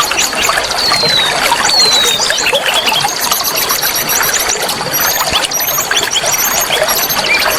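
Oriental magpie-robins (kacer) singing over steadily flowing water: overlapping quick chirps and trills, with falling whistles and high rising sweeps. The birdsong is a lure track meant to rouse a caged kacer into singing.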